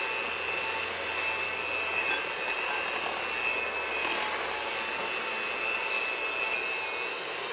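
KitchenAid Ultra Power electric hand mixer running steadily with a thin high whine, its beaters churning egg yolks, sugar and cornstarch in a glass bowl.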